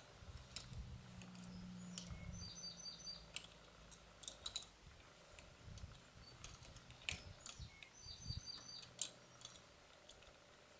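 Faint, scattered metal clicks of a wrench on the nut of a 12 mm Triplex sleeve bolt as it is tightened down into concrete. A bird gives a short run of rapid chirps twice.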